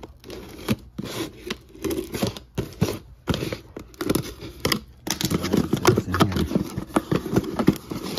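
Cardboard shipping case being torn open by hand along its tear strip: irregular ripping and scraping of corrugated cardboard, then the flaps pulled back, busier and louder in the second half.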